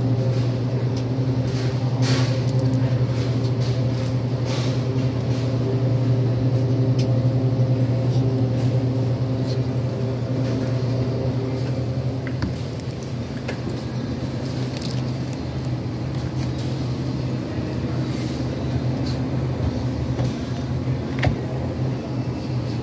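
A steady low machine hum with several fixed overtones, easing slightly about halfway through, with scattered faint clicks and knocks over it.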